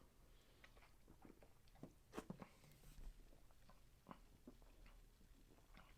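Near silence with a few faint mouth clicks and swallows from a man drinking carbonated ginger ale from a bottle.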